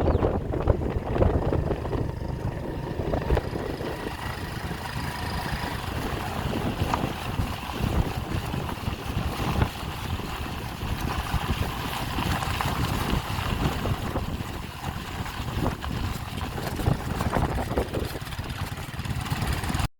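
Wind buffeting the microphone over the low rumble of a moving vehicle.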